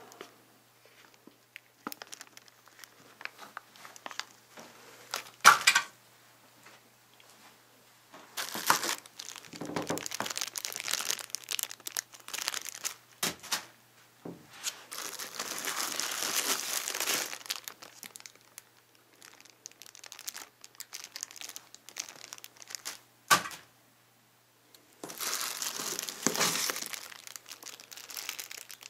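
Clear plastic packaging bags crinkling and rustling in irregular bursts as monitor accessories are handled and unwrapped from the box, with two sharp knocks, one about five seconds in and one later on.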